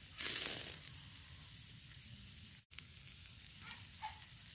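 Mussels on the half shell grilling over charcoal, their scallion-oil topping sizzling and bubbling in the shells. A louder burst of sizzle about a quarter-second in settles into a steady, fainter sizzle with small pops, broken for an instant just past the middle.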